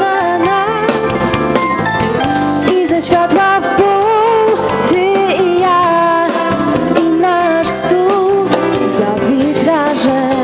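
Live band music: a female vocalist sings a held, wavering melody into a microphone, accompanied by keyboard and drum kit.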